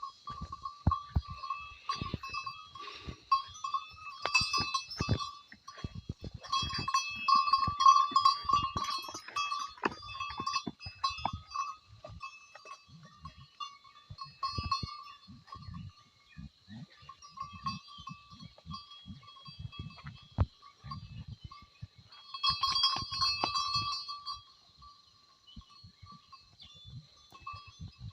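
Goats at close range, with a steady high-pitched tone that swells and fades, loudest about eight seconds in and again near twenty-three seconds, over scattered short low knocks and thumps.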